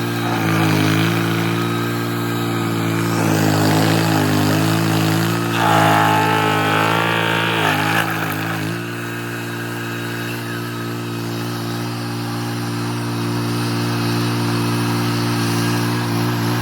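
Vehicle engine running at a steady speed, a low even hum that wavers in pitch for a few seconds before settling.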